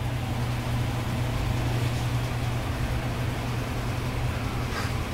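A steady low mechanical hum with a hiss behind it, and a brief faint rustle near the end.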